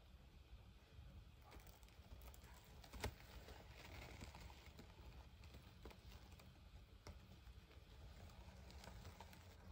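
Near silence with faint scattered rustles and light ticks, and one sharper click about three seconds in.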